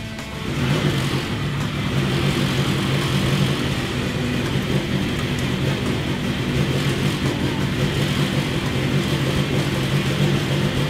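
Freshly built Nissan SR20 four-cylinder engine running steadily in its first runs after being wired up.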